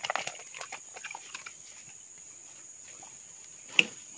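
Steady high-pitched drone of crickets or other insects, with small water splashes and drips in the first second and one short sharp knock near the end.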